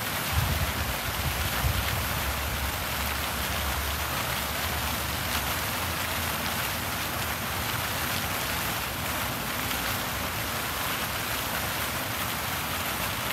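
Plaza fountain jets splashing steadily into the pool, an even rain-like patter of falling water. A low wind rumble on the microphone fades over the first few seconds.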